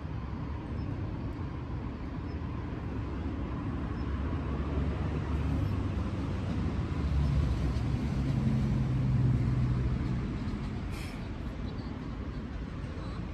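Road traffic rumble with a motor vehicle passing: a low engine hum swells for several seconds in the middle and then fades back into the steady traffic noise.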